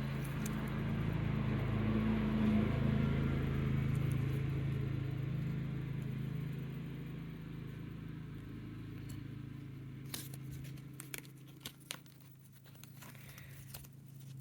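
A steady low hum that fades away about ten seconds in. After that come short crinkling rustles of a polyester football jersey being handled and turned over.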